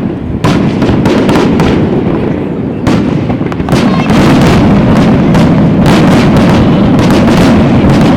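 Fireworks display: a rapid string of bangs and crackles over a dense rumble, growing louder and denser about four seconds in.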